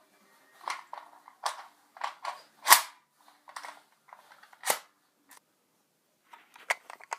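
Metal magazine of a Galaxy 20 spring-piston BB pistol being loaded with a few BBs and handled: a string of irregular sharp metallic clicks and snaps, the loudest a little under 3 s in and another just under 5 s in.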